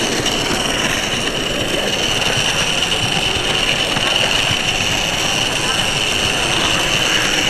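Steady running noise of a model train, heard from a camera riding on it, with a constant high whine, over the chatter of a crowd of onlookers.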